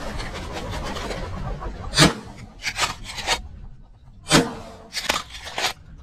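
Rustling of dry prairie grass at first, then two loud shotgun shots about two and a half seconds apart, fired at a flushing sharp-tailed grouse. Each shot is followed within a second by a few fainter sharp cracks.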